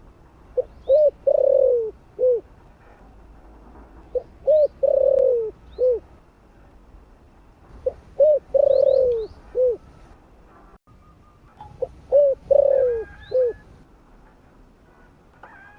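Spotted dove cooing: four repeated phrases about four seconds apart, each a couple of short coos, one long drawn-out falling coo, and a short closing coo. Faint high chirps of small birds come between the phrases.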